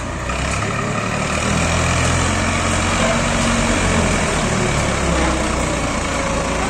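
Massey Ferguson 260 tractor's diesel engine working hard under heavy load, straining to drag a trolley loaded with bricks that is stuck in mud. The engine grows louder over the first two seconds, then holds steady.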